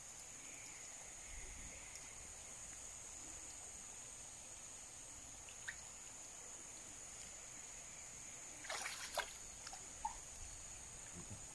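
Water sloshing gently as men wade in a river, with a short splash about nine seconds in, over a steady high-pitched insect drone.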